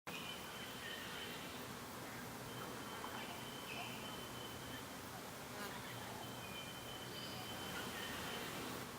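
Forest ambience with an insect's steady high-pitched trill that stops and starts several times, over a soft background hiss, with a few short faint calls.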